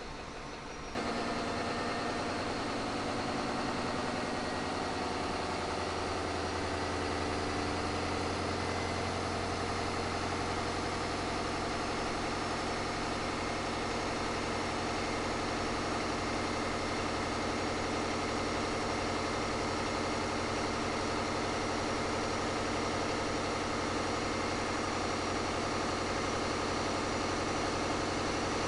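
Caterpillar 3516B V16 diesel engine running steadily on an engine dyno, cutting in abruptly about a second in after a quieter hiss.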